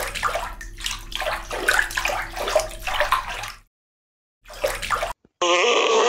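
Water splashing and gurgling in uneven spurts, which stops about three and a half seconds in and returns briefly. Near the end a different, pitched sound with a wavering pitch begins.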